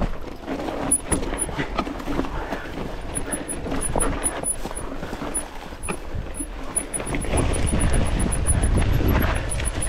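Commencal Meta TR 29 mountain bike riding down a dry, stony dirt trail: tyres crunching over dirt and rocks, with frequent rattling knocks from the bike. A low rumble, like wind on the microphone, grows louder about seven seconds in.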